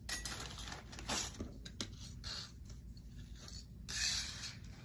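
A plastic bag of small metal jewelry findings being handled: soft, irregular rustling and scraping in short bursts, with a louder rustle about four seconds in.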